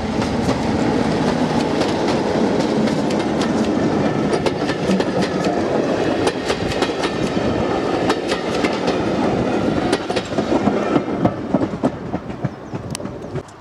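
British Rail Class 33/2 diesel locomotive 33201, with its Sulzer eight-cylinder engine, passing close by at speed, followed by its coaches rattling past with wheels clicking over the rail joints. The sound fades near the end as the train draws away.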